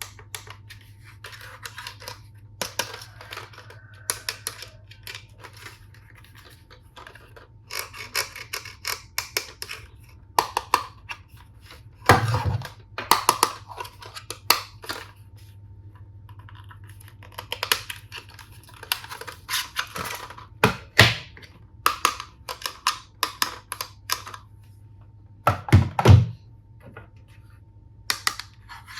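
Plastic toy tool-set pieces being handled: irregular clicks, taps and light rattles, with three louder thunks, a little before halfway, about two-thirds in and near the end.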